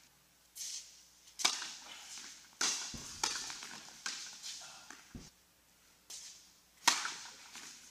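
Tennis balls struck with rackets in a doubles rally, with ball bounces: several sharp, separate hits a second or more apart, each trailing a short echo off the walls of the indoor tennis hall.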